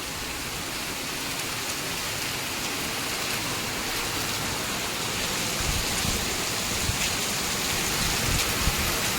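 Heavy rain pouring down steadily, with a few low thumps in the second half.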